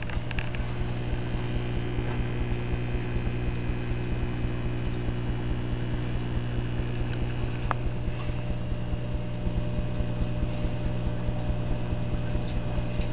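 An Aqueon QuietFlow 10 filter and a Petco powerhead running on a small reef aquarium. Their motors give a steady electric hum over a constant sound of moving and splashing water.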